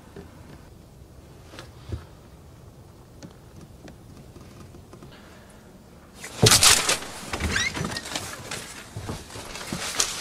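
A low, even outdoor background, then about six seconds in a house's front door is opened with a sudden loud clatter of knocks and scuffs, a brief squeak, and people stepping inside.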